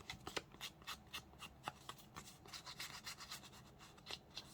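Faint, quick, uneven rubbing strokes of an inking tool worked around the edges of a paper card, inking the edges.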